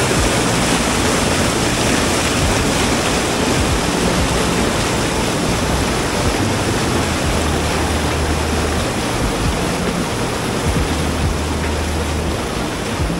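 Waterfall rushing: a loud, even noise of falling water that starts abruptly, with no breaks.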